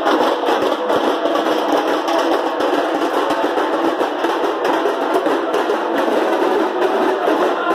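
Music of a street religious procession: drums and other percussion playing at a steady loudness.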